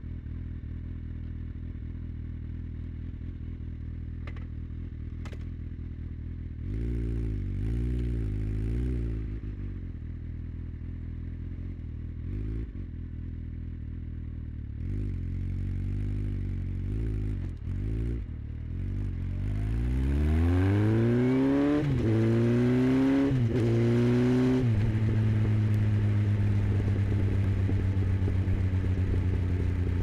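2009 Honda CBF1000's inline-four engine idling, its pitch wavering twice as the throttle is worked at walking pace. About twenty seconds in it pulls away, rising in pitch with two drops at the gear changes, then settles to a steady cruise.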